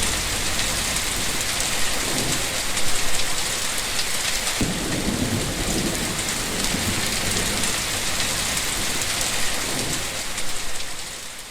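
Steady heavy rain falling, with a low roll of thunder rumbling in about four and a half seconds in. The sound fades out at the very end.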